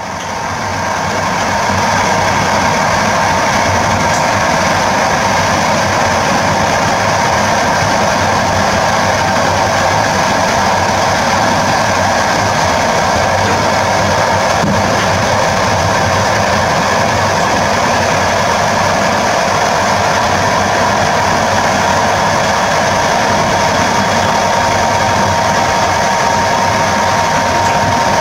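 Steady running noise of an EP07P electric locomotive heard from its cab as it travels along the line: a constant hum with a few steady tones over a low rumble from the wheels on the rails. It fades in over the first two seconds.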